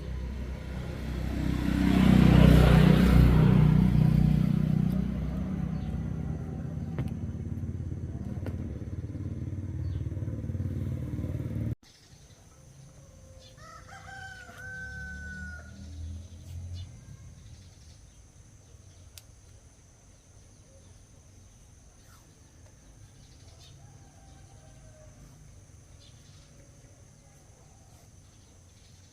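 A loud rumbling noise that swells to its loudest two to four seconds in, fades, and cuts off abruptly about twelve seconds in. After that, in quieter surroundings, a rooster crows once, about fourteen seconds in.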